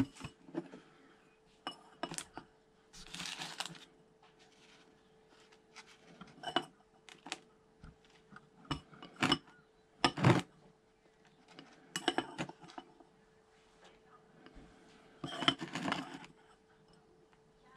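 Hands working potting compost into plastic seedling cell trays with a small hand trowel: scattered light clicks and knocks of plastic and metal. There are two short spells of rustling compost, one about three seconds in and one near the end, over a faint steady hum.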